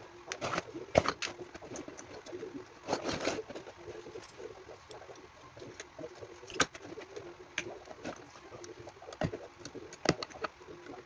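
Scattered clicks and knocks of small tools and plastic and metal parts being handled while a scooter's electronic control box is taken apart, with a brief rustle around three seconds in.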